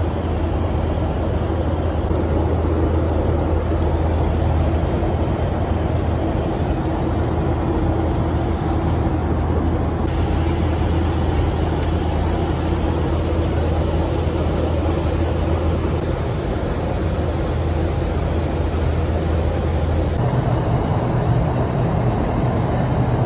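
Steady cabin noise of a Boeing 737-500 airliner in cruise: a constant rush of engine and airflow noise over a low hum. The hum shifts to a slightly higher pitch near the end.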